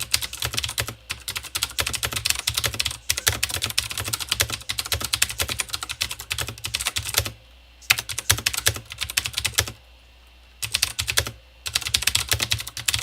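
Fast typing on a mechanical keyboard with Cherry MX Blue switches: a dense run of sharp, loud clicks from the tactile clicky switches, broken by short pauses about two-thirds of the way through.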